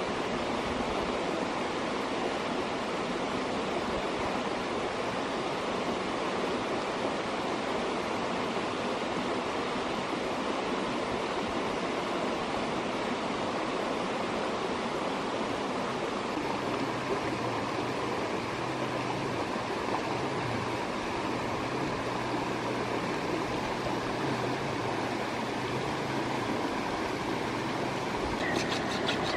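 Shallow rocky stream flowing, a steady even hiss of running water, with a short run of sharp ticks near the end.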